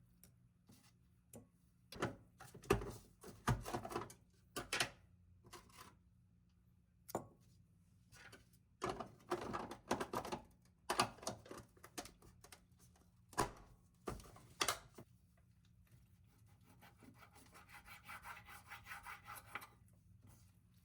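Irregular scraping and rubbing strokes on a hard surface, mixed with sharp knocks, then a quieter, fast-repeating rasping near the end.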